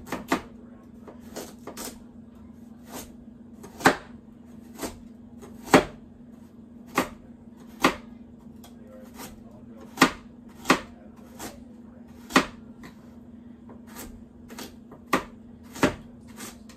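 Kitchen knife slicing a carrot thin on a cutting board, each cut ending in a sharp knock on the board, unevenly spaced at roughly one a second.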